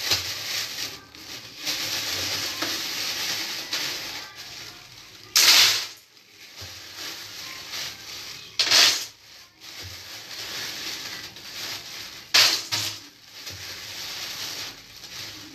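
Clear plastic bag being handled and crinkled, a steady rustle broken by a few short, loud crinkles every three to four seconds.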